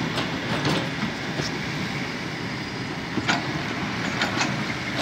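Kobelco SK200-10 hydraulic excavator working, its diesel engine running steadily, with a few sharp clacks scattered through, the loudest about three seconds in.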